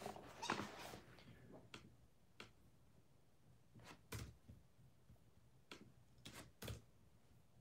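Sparse, irregular clicks and taps of a computer keyboard and mouse against near silence.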